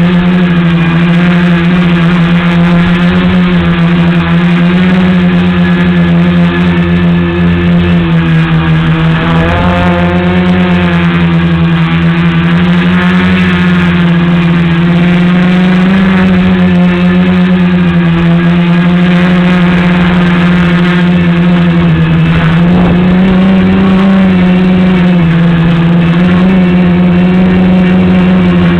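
Tricopter's three brushless motors and propellers buzzing steadily in flight, the pitch rising and falling slightly with throttle changes, a little higher around the middle and again near the end.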